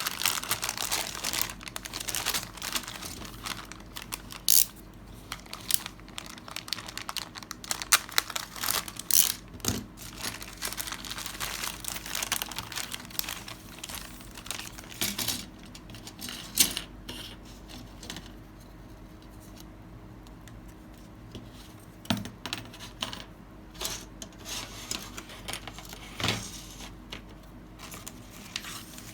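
Plastic packaging of a scale model kit crinkling and tearing as it is handled, with scattered sharp clicks and taps throughout.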